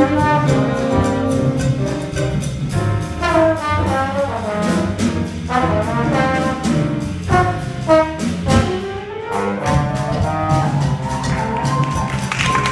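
Youth jazz combo of saxophones, trombone and drum kit playing a tune together, horns in melody over steady drum strokes. A single high note is held near the end.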